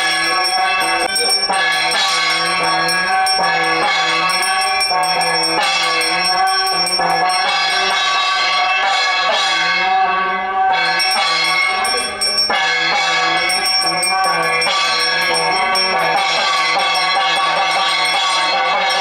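Music playing while a small brass puja hand bell is rung continuously as part of the puja ritual.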